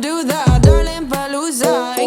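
Background song with a sung vocal melody over a steady beat, and a deep bass note sliding down in pitch about half a second in.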